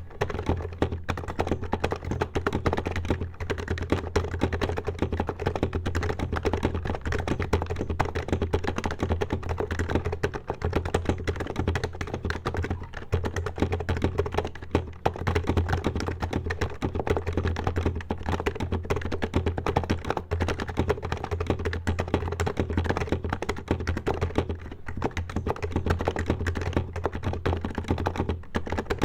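Fast continuous typing on an HHKB Professional HYBRID Type-S keyboard with silenced Topre electrostatic capacitive switches and 45 g keys: a dense stream of soft, low keystrokes with no pauses longer than a moment.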